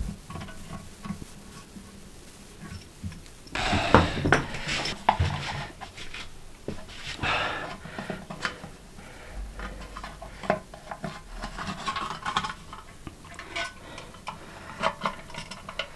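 Hard parts clinking, clattering and scraping as the fittings of a toilet cistern are handled. There are scattered clicks throughout, with the loudest clatter about four seconds in and again around seven seconds.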